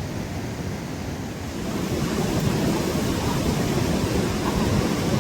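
Steady rush of a fast mountain river, growing louder about two seconds in.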